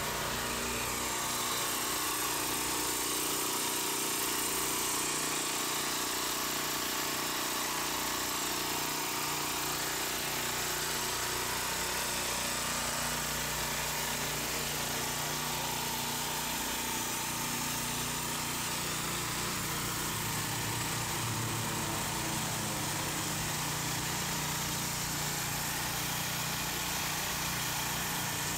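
Portable generators running steadily, a continuous engine hum that holds its pitch throughout.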